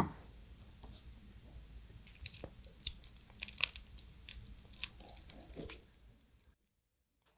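Soy-sauce-marinated raw crab (ganjang gejang) being cracked and pulled apart by hand, its shell and legs giving irregular sharp crackles as the meat is squeezed out. The sound stops abruptly about a second before the end.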